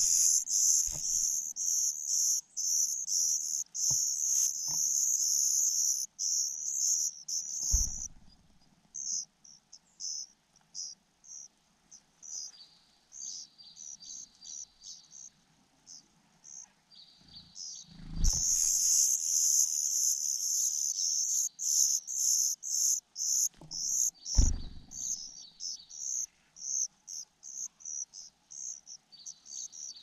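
Nestlings begging for food at the nest while a parent feeds them: dense, high-pitched, rapid chirping in two long bouts, one at the start and one from about eighteen seconds in, each lasting several seconds, with sparser short chirps between. A few dull thumps mark the start and end of the bouts.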